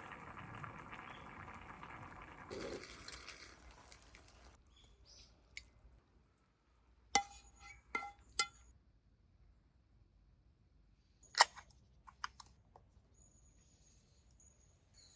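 Liquid pouring for about four seconds, its sound rising partway through, followed by several sharp clinks and knocks, a few with a short ring.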